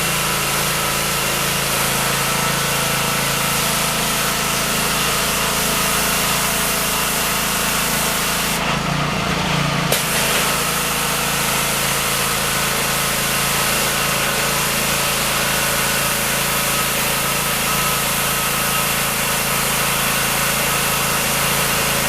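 Gas-engine pressure washer running steadily, the engine's hum under the hiss of the spray. The spray hiss drops out for about a second midway while the engine keeps running.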